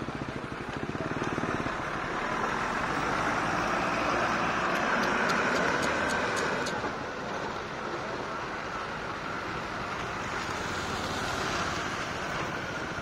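Road traffic: a motor vehicle running on the road, its engine and tyre noise swelling over a few seconds and then easing off, with a few faint clicks midway.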